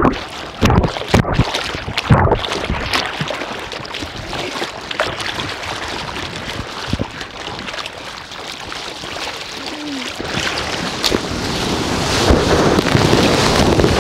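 Ocean surf washing, with wind on the microphone; a few sharp splashes in the first few seconds, and the wash of breaking whitewater growing louder near the end.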